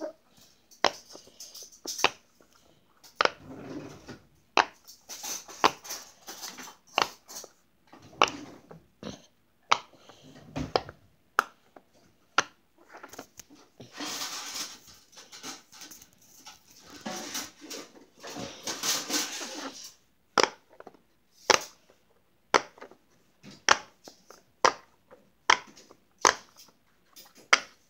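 Bubbles of a silicone pop-it fidget toy pressed in one after another by finger, each giving a short sharp pop. The pops are irregular, with two longer stretches of rubbing and handling noise, and come about one a second near the end.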